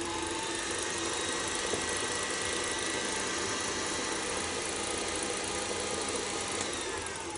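KitchenAid stand mixer running at high speed, its wire whisk beating crème mousseline in a steel bowl with a steady whirring hum. Near the end the pitch falls as the mixer is turned down to low speed.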